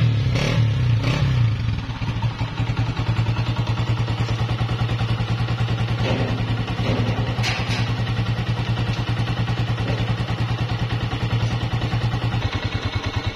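Honda CG 125's air-cooled single-cylinder four-stroke engine running a little faster at first, then settling to a steady, even idle about two seconds in. The cam gear has just been replaced and the tappets reset, and the running sound is free of the earlier engine noise, called "100% clear".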